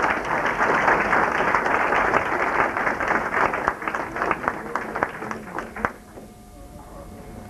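Audience applauding, the clapping thinning out and stopping about six seconds in.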